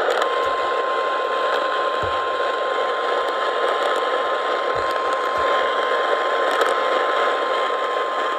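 NOAA Weather Radio 1050 Hz warning alarm tone: a single steady tone held for about eight seconds over radio static. It signals that a warning message follows.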